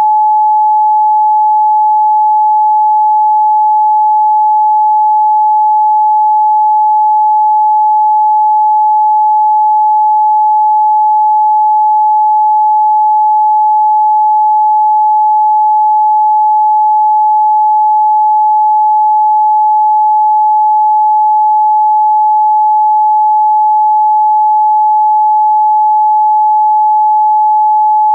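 Steady, loud 855 Hz pure sine-wave test tone, one unchanging pitch with no overtones.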